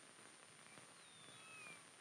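Near silence: faint old-soundtrack hiss with a steady high whine, and a few faint, thin, falling kitten mews about a second in.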